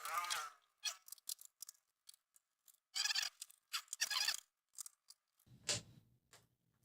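Phillips screwdriver backing the screws out of a laptop's plastic bottom panel: a run of small clicks with a few short squeaks and scrapes.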